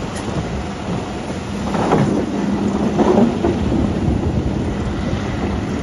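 Continuous rumble of quarry machinery: a mobile stone crushing and screening plant running with a wheel loader working beside it. A steady hum joins about a second and a half in, with a louder rattling stretch around two to three seconds in.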